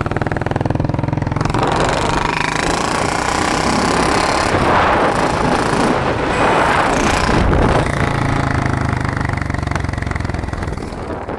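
Royal Enfield motorcycle engine running with a rapid, jackhammer-like rattle. The engine is raised in speed for several seconds in the middle, then settles back to idle.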